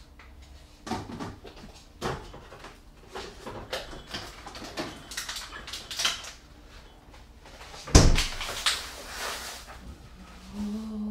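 Refrigerator being rummaged through: items knocking and clicking against the shelves and door bins. The refrigerator door thumps shut about eight seconds in, the loudest sound.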